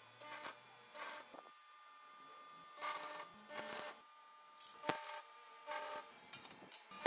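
Stick (arc) welder tack-welding a square steel tube frame: about seven short bursts of arc noise, each under half a second, with brief gaps between them.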